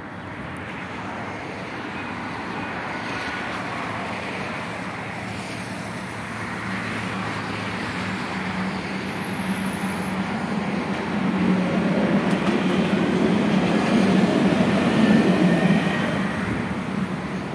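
Dubai Tram (Alstom Citadis) running past on its tracks. Its steady low hum and rolling noise grow louder as it approaches, are loudest a few seconds before the end, then begin to fade.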